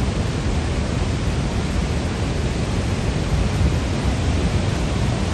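Steady roar of Niagara Falls' falling water, an even rushing noise with no breaks.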